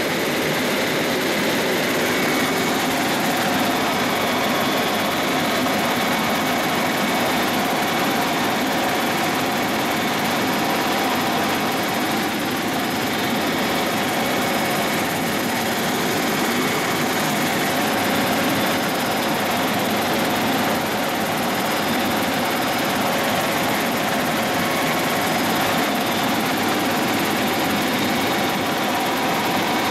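Helicopter in cruising flight, heard from inside the cabin: a steady drone of engine and rotor noise with several held whining tones above it.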